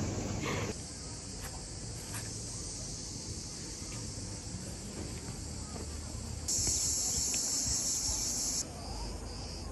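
Cicadas singing in a steady, high-pitched buzz. It grows louder for about two seconds past the middle, then cuts back to a softer, pulsing chirr.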